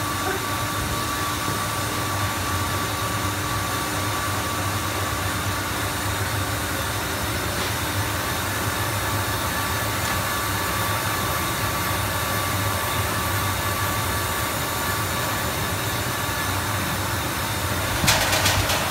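Steady hum of factory machinery with a faint constant whine; a brief rattling clatter comes near the end.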